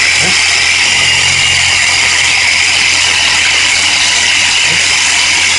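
Portable tire-inflator air compressor running steadily, a loud hissing buzz over a low hum, now building air pressure again with its worn O-ring replaced.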